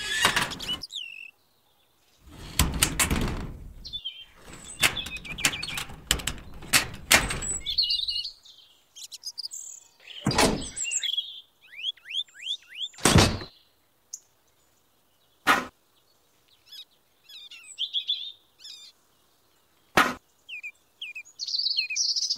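Small birds chirping in quick, high runs, over handling noise of small plastic toy parts: a stretch of rubbing and clattering from about two to eight seconds in, then single sharp knocks every few seconds as pieces are set down.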